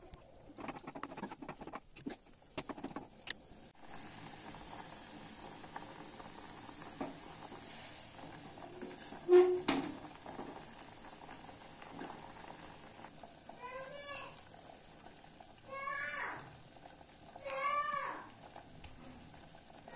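Dal with spinach boiling in an open aluminium pressure-cooker pot, a steady bubbling that sets in about four seconds in. A single sharp knock comes about nine seconds in. Near the end an animal calls three times, each call rising and falling.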